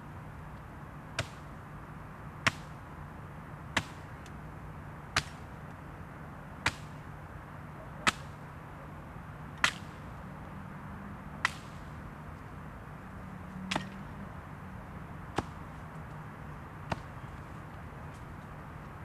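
A sharp, short crack repeated eleven times, about one every one and a half seconds, the gaps widening slightly toward the end, over a steady low hum.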